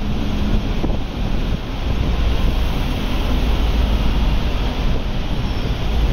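Steady rumble of an MTR electric train rolling slowly past, with wind buffeting the microphone.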